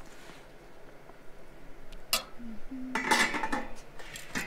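Metal serving ladle and brass chafing-dish lids clinking at a buffet: a sharp clink about two seconds in, a longer ringing metal clatter about three seconds in, and another clink near the end.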